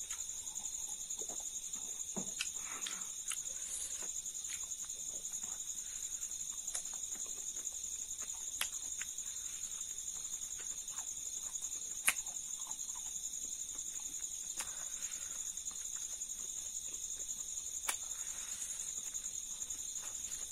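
Close-up chewing of dry-fried spicy silkworms bitten off a skewer, with scattered sharp crunches and mouth clicks, the sharpest about twelve seconds in. Under it runs a steady, high chirring of crickets.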